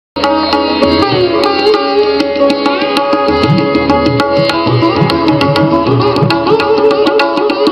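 Instrumental background music in Indian classical style: tabla-like hand drumming with bending low drum tones under plucked strings.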